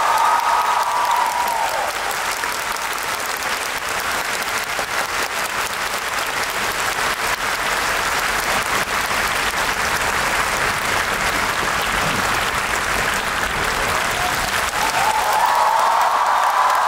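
Large concert audience applauding steadily, with high-pitched cheering voices rising over the clapping at the start and again near the end.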